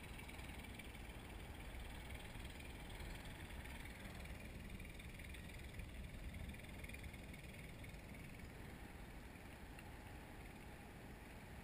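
Faint, steady wind rush on a GoPro's microphone, high in the air under a parasail.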